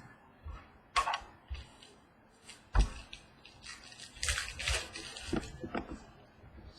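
Trading-card boxes and packs being handled on a tabletop: scattered taps and crinkling of wrapper, with one louder thump near the middle.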